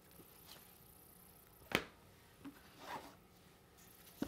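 K-pop album and photocard packaging handled by hand: one sharp tap or click about two seconds in, a smaller tap and a short soft rustle after it, and another click near the end.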